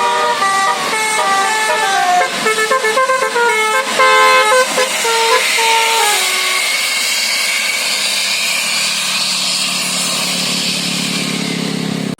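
A bus's telolet basuri musical air horn playing a quick melody, note after note, for about the first six seconds. The horn then stops and the bus is heard running with a rushing hiss and a low engine drone that slowly rises in pitch.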